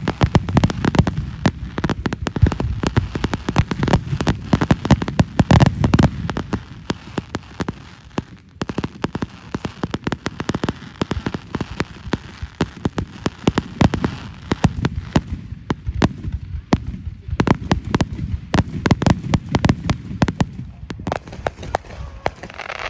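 Fireworks bursting close by: dense, rapid crackling pops mixed with low booms from the shells. The booms are heaviest in the first six seconds and again a few seconds before the end, with a sparser stretch of crackle between.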